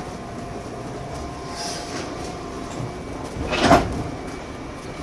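A departing train, a steady rumble with faint steady tones, with one short, loud clack about three and a half seconds in.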